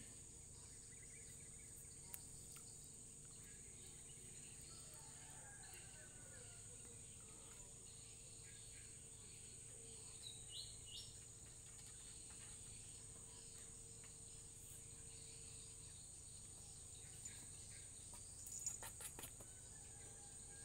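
Near silence with a faint, steady, high-pitched insect drone, a few brief chirps about halfway through and some light taps near the end.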